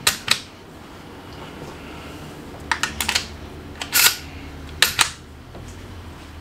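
Dummy 12-gauge shells being pushed one by one through the loading port into a Mossberg 590A1 pump shotgun's tube magazine. Each goes in with sharp clicks and clacks, in about four quick clusters.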